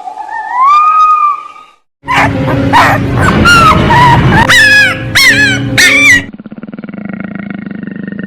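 A dog whining and then yelping, several times in quick succession. A gliding whine comes first, then overlapping high yelps. About six seconds in, it gives way to a lower, steady pulsing sound.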